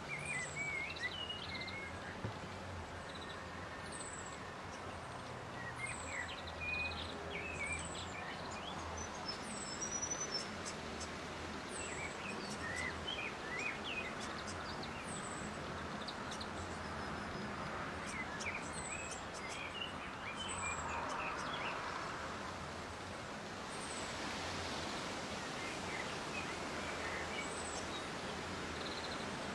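Small birds calling outdoors. A thin, very high call repeats every second or two throughout, over scattered short chirps and a steady background hiss.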